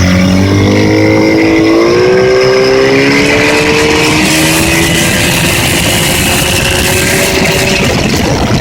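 Yamaha 30 hp outboard motor running, its revs climbing over the first few seconds, holding higher, then dropping back shortly before the end. It is an engine with a knock.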